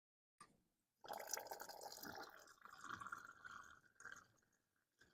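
Faint trickle and drips of gasoline running out of a removed automotive fuel filter into a small cup, for about three seconds.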